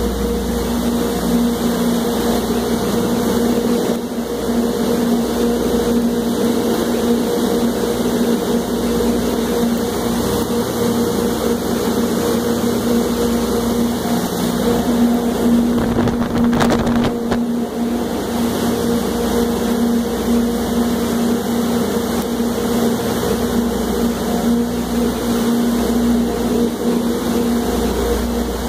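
Steady mechanical hum with a constant pitched drone, interrupted by a brief cluster of knocks a little past halfway.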